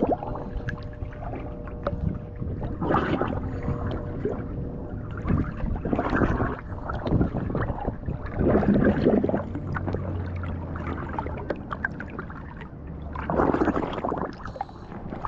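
Underwater breathing through a scuba regulator: bubbly exhalations every few seconds, five in all, over a steady low underwater rumble.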